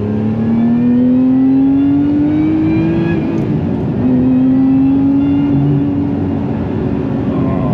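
Lotus Emira V6 engine accelerating under load, its note rising for about three seconds, dropping with an upshift, then pulling steadily in the next gear.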